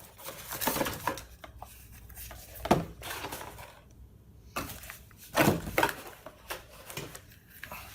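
Unboxed headset packaging and its contents being handled: irregular small knocks, clicks and rustles, with a sharper knock a little under three seconds in.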